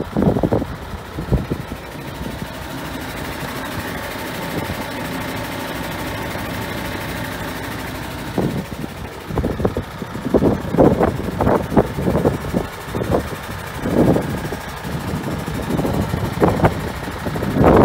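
MAN TGX 26.440 truck's straight-six diesel engine idling steadily. From about halfway on, irregular short rumbling bursts, like wind buffeting the microphone, come over the idle.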